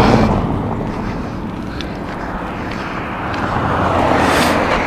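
Road traffic going by steadily, growing louder near the end as a vehicle passes close.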